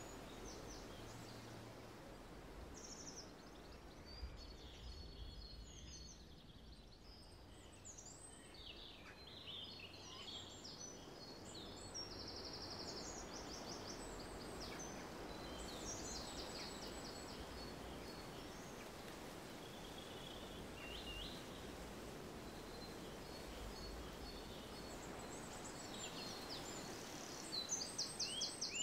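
Outdoor garden ambience: several small songbirds chirping and singing short fast trills over a steady low background noise, the birdsong growing louder near the end.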